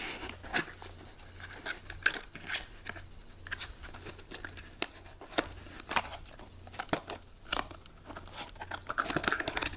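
Yu-Gi-Oh trading cards being handled and set aside by hand, with scattered clicks and taps and light crinkling.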